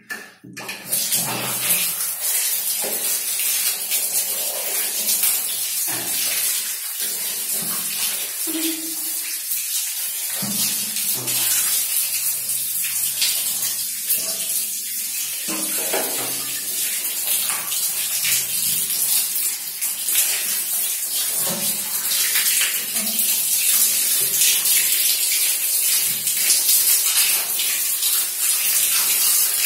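Water running in a stream from a wall tap and splashing onto a pug and the tiled floor as the dog is rinsed; a steady hiss that starts about half a second in.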